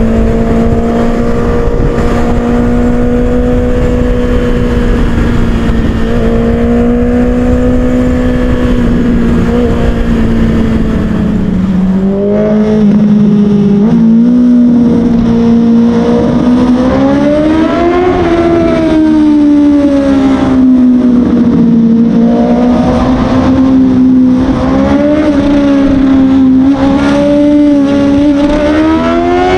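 Honda CBR motorcycle engine at speed, holding a steady pitch under wind noise for about twelve seconds, then rising and falling repeatedly as the rider works the throttle and gears.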